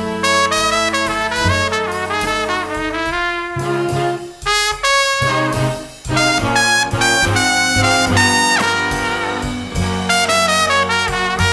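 Big-band jazz with a brass section, trumpets and trombones playing quick phrases, with two short breaks near the middle.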